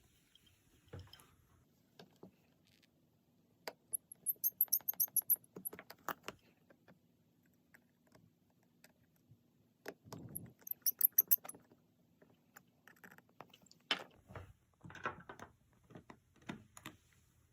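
Small metal tools and parts clicking and tapping against a phone's internals during reassembly: scattered light clicks, with two quick runs of rattling clicks about four and ten seconds in.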